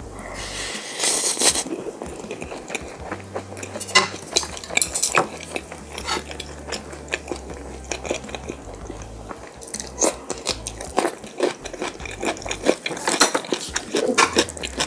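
Close-miked chewing of gamjatang fried rice: a steady run of wet mouth clicks and smacks, with louder clusters about a second in and again near four, ten and thirteen seconds.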